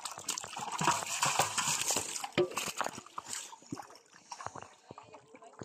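Thick wet pond mud squelching and sloshing as hands scoop fish and slurry into a metal bowl, with a dense run of sharp wet clicks and splats. Later come quieter, scattered squelches as legs wade through the deep mud.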